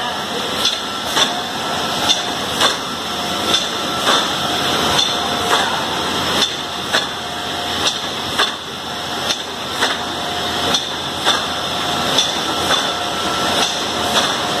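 Lollipop depositing line running, with sharp mechanical knocks in pairs about half a second apart, repeating about every second and a half over a steady machine hum.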